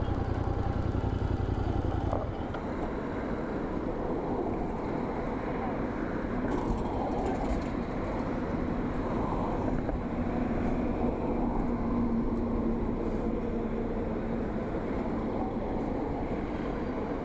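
Royal Enfield Continental GT 650's 648 cc parallel-twin engine running under way, with road and wind noise on the microphone. A heavy wind rumble drops away about two seconds in.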